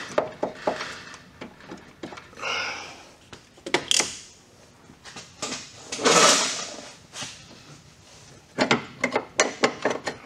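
Scattered metallic clicks, knocks and scraping as a water pump with its pulley is wiggled and turned into its housing on the engine block. The longest, loudest scrape comes about six seconds in.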